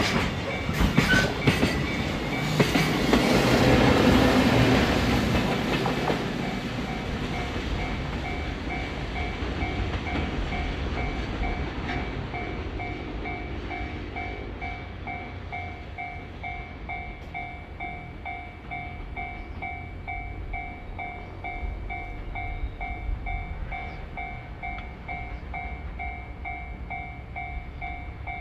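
Freight train rolling past on the rails with the EF67 electric banking locomotive pushing at the rear: wheel and rail clatter loudest about four seconds in, then fading as the train climbs away. A level-crossing warning bell rings steadily, about two rings a second.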